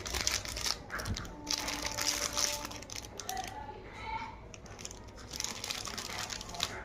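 Plastic packaging crinkling and rustling as it is handled, with irregular small clicks and crackles.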